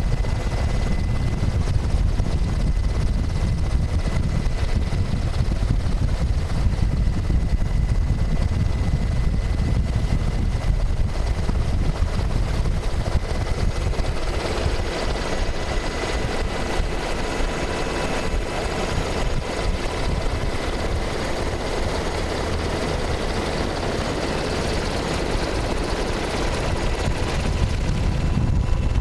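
Helicopter rotor and engine noise heard from on board, a steady low drone that holds at one level throughout.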